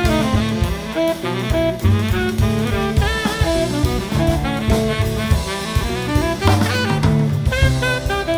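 Studio jazz quartet playing: tenor saxophone lines over acoustic bass and drum kit, with guitar in the band.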